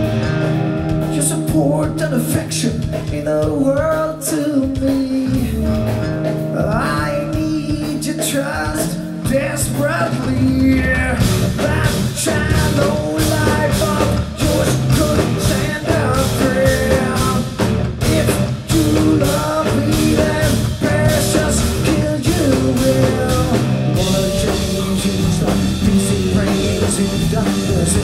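Live rock band playing loud: electric guitars and bass over a drum kit. A sparser passage of held low notes and gliding pitches gives way about ten seconds in to the drums playing hard with the full band.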